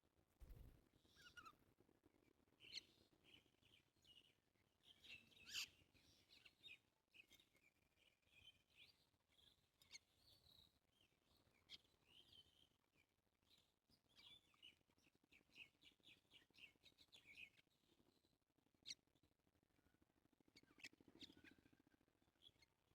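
Small songbirds chirping faintly: many short, high chirps and twitters, with a quick run of repeated notes partway through and a few sharper, louder calls.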